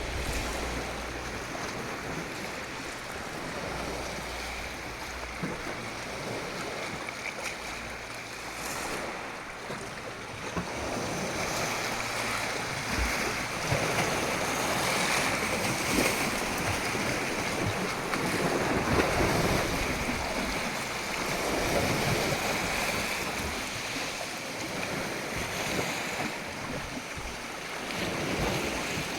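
Ocean waves breaking and washing on the shore, a continuous rushing surf that swells and ebbs over several seconds, with some wind on the microphone.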